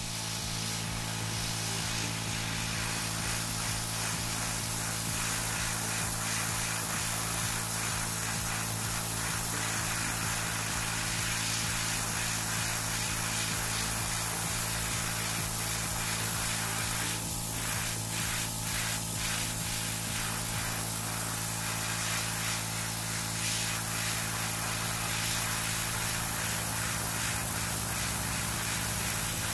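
Small airbrush compressor running with a steady hum, while a dual-action gravity-feed airbrush hisses as it sprays paint.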